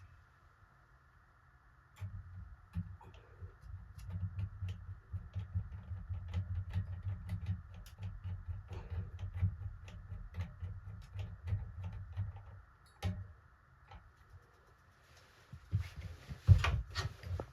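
Small clicks, taps and clatter of hands and tools working on the ceiling fan's switch housing, over low handling rumble, with a short pause and then a few louder knocks near the end.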